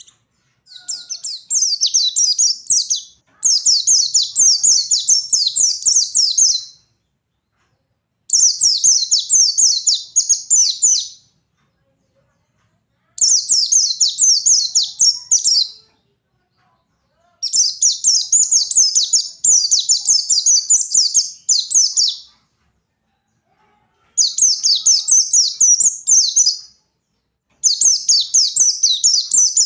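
White-eye (pleci) singing its fast, unbroken twittering 'ngalas' song in repeated high-pitched bursts of a few seconds each, with short silent gaps between them.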